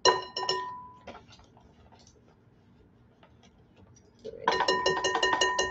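Metal measuring spoon clinking against a glass mixing bowl: a few ringing taps at the start, a single tap about a second in, then a quick run of ringing taps from about four seconds in.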